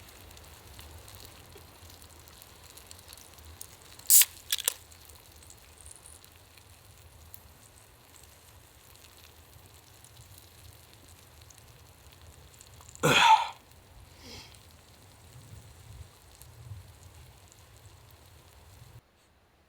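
Faint sizzling and crackle of a steak cooking on an iron plate over an open campfire. Two sharp clicks come about four seconds in and a louder noisy burst about two-thirds of the way through, and the sound cuts out just before the end.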